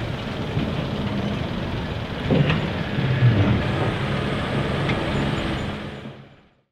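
Scania V8 truck engine running while the hydraulically raised tipper body empties milled asphalt, a steady engine note under a rushing, rattling slide of loose material; it fades out near the end.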